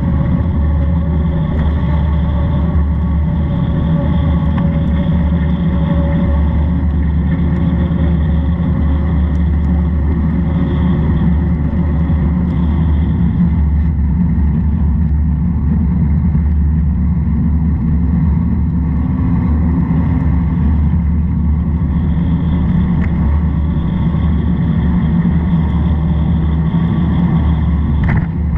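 Steady low rumble of a vehicle in motion on a wet road, heard from a camera riding on it, with a brief click near the end.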